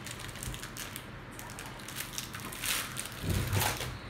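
Crinkling of a Hanuta wafer's foil wrapper as it is torn open and handled, irregular crackles that are loudest about three seconds in, with a low bump there too.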